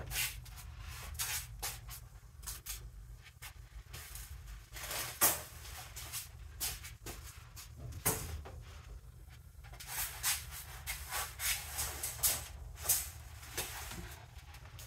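Scattered rustles, clicks and light knocks of things being handled inside a car's back seat, over a steady low hum.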